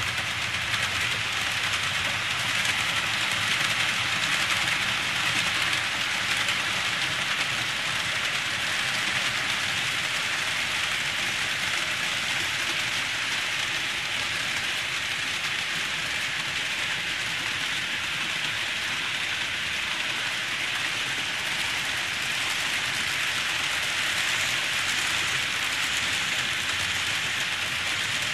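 KATO N-gauge 205 series model electric trains running on the layout track: a steady rushing noise of motors and wheels on the rails.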